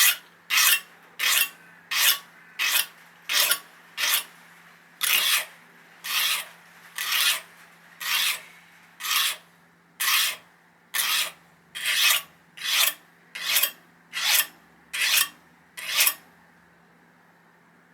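Fine double-cut hand file rasping across a steel kitchen-knife edge in about twenty short, even push strokes, roughly one a second, that stop near the end. The file is dressing out chips and burrs to give the edge a flat line.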